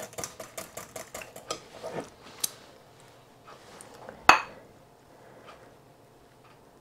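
Metal spoon stirring custard in a glass measuring jug, clinking quickly against the glass, then one sharper clink about four seconds in.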